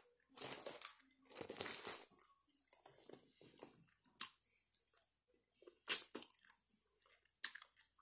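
A person eating a chicken gyro and fries close to the microphone: chewing and crunching with crinkling, rustling noises. The noise is loudest in the first two seconds and is followed by a few sharp clicks.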